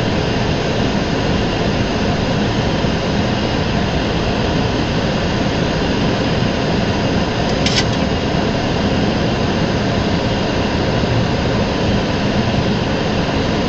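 Steady flight-deck noise of a Boeing 737 on final approach: an even rush of jet engine, airflow and air-conditioning noise. A short high click a little past halfway.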